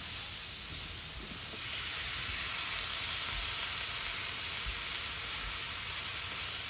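Vegetables sizzling in a hot frying pan, a steady hiss.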